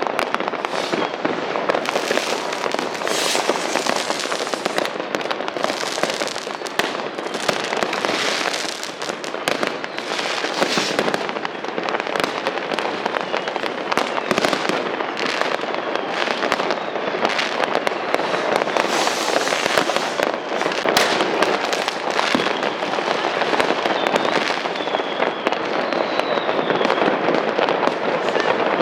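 Dense New Year's Eve fireworks going off without pause: many overlapping bangs and firecracker crackle, with a few rocket whistles in the second half.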